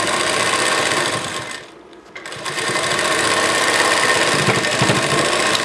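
Sewing machine stitching a blouse's side and sleeve seam. It stops briefly about two seconds in, then runs again.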